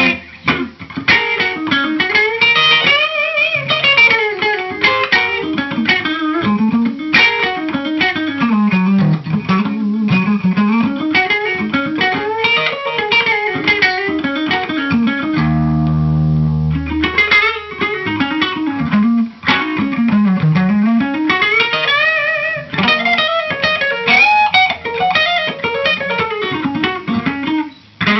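Electric guitar, a Gibson Les Paul Standard reissue through a tube amp, playing quick runs of single notes that climb and fall, with one low note left ringing for about a second and a half about halfway through.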